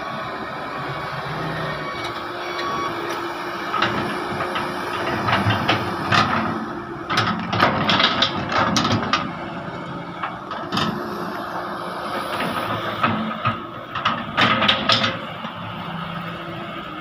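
Heavy excavator's diesel engine running steadily, with two spells of sharp clanking knocks, around the middle and again later on, as it works.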